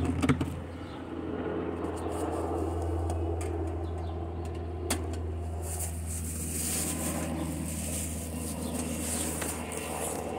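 Cardboard box and paper packing rustling and scraping as a small stainless-steel camping stove is lifted out, with a few sharp clicks. Under it runs a steady low machine hum.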